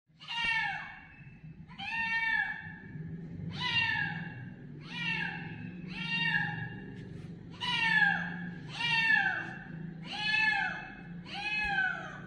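Kitten meowing over and over: about nine high calls, one every second or so, each rising and falling in pitch, over a faint steady low hum.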